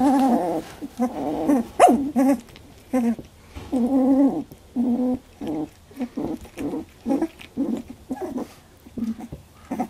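Young Labradoodle puppies, about 18 days old, whimpering and grumbling in a string of short, pitched cries as they tussle, with one sharp high squeak about two seconds in.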